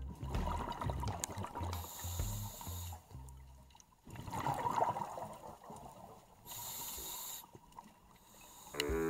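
Scuba diver breathing through a regulator underwater: a hiss on the inhale, a rough burst of exhaled bubbles, then a second hiss. Soft background music with a low beat fades out after about three seconds.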